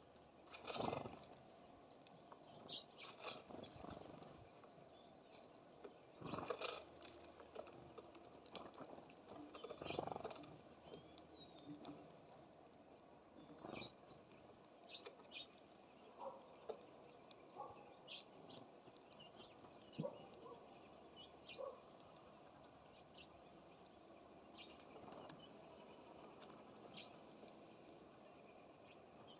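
Songbirds at a seed feeder: irregular soft knocks and scratches, loudest three times in the first ten seconds, with a few faint short high chirps.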